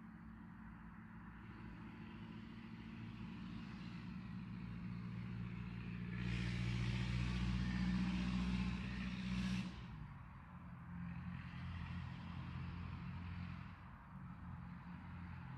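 A motor vehicle's engine humming steadily, growing louder with a rushing hiss about six seconds in and dropping away suddenly near ten seconds, then carrying on more quietly.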